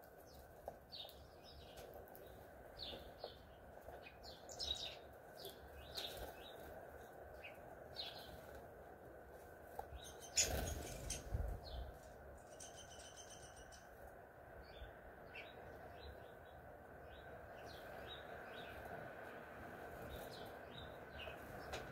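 Small songbirds chirping with many short, high calls, a brief rapid buzzy chatter a little past halfway, and a single thump about ten seconds in.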